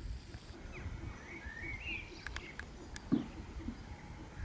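Faint outdoor ambience with distant birds chirping in short rising and falling notes, a few light clicks, and a single short low thump about three seconds in.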